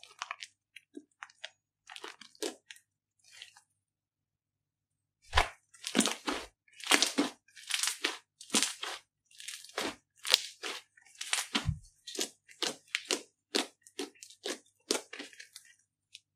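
Thick slime squeezed, kneaded and stretched by hand, giving short sticky pops and crackles. Soft and scattered at first, then after a brief pause a loud run of them comes about two a second as the slime is pulled apart.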